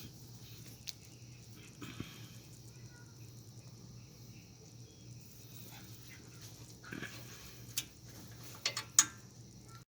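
A few sharp clicks and knocks of hand tools and brake parts being handled, over a faint steady hum; the loudest knock comes about nine seconds in.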